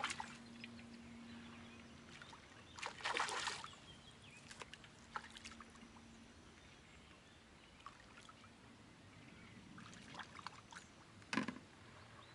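A hooked fish thrashing and splashing at the river surface as it is played on the line, with louder splashes about three seconds in and again near the end.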